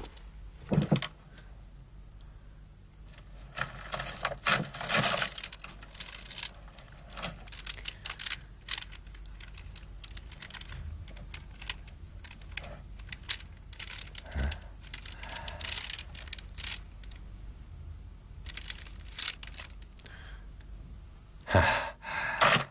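Handling noises: rustling as fur pelts in a chest are shifted, with scattered small clicks and clatters as a string of beads is fingered.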